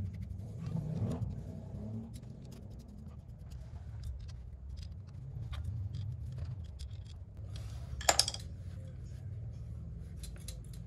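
Small clicks, taps and scrapes of carburetor parts being handled and fitted together by hand, with one sharp clack about eight seconds in. A steady low hum runs underneath.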